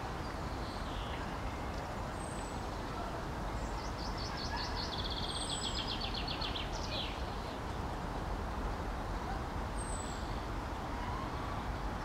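Steady low rumble of distant city traffic, with small birds calling over it: a rapid trill lasting about three seconds, starting about four seconds in, and a few short, thin, high whistles.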